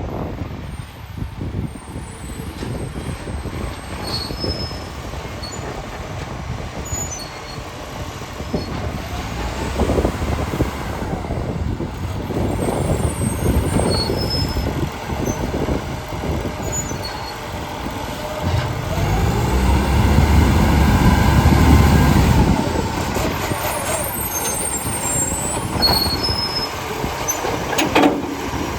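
Garbage truck's diesel engine running and revving up and down, loudest a little after two-thirds of the way in. A short sharp sound comes near the end.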